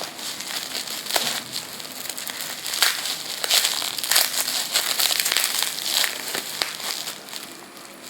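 Crinkly packaging being handled and unwrapped by hand: continuous crackling and rustling with many small sharp crackles.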